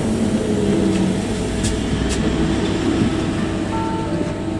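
A tram rolling past close by, heard from inside a standing trolleybus, over a steady low electric hum, with a couple of light clicks partway through.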